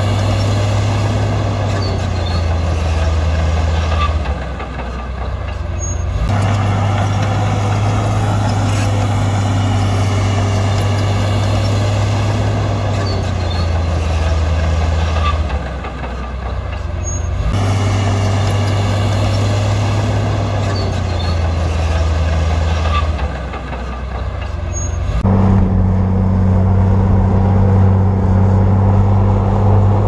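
Heavy diesel engine of earthmoving machinery running steadily. Its sound dips briefly three times, and near the end it changes to a different, higher engine note.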